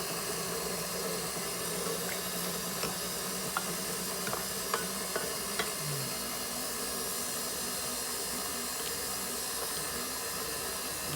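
Steady hiss with a faint hum, and a few light ticks between about two and six seconds in.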